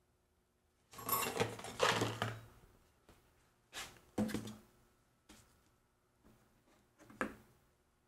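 Handling noise on a wooden tabletop: a cluster of knocks and scrapes about a second in, then a few separate sharp knocks as a stainless steel ruler and a paper plate of turkey are moved about.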